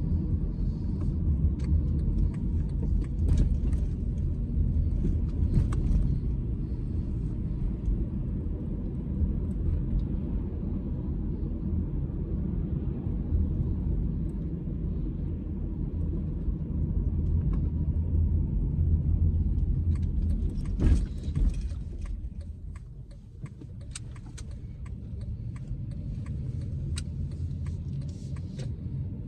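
Car driving, a steady low rumble of engine and road noise with scattered light clicks and rattles. A sharp knock comes about 21 seconds in, and the rumble then drops away and slowly builds again, as when the car slows and pulls off.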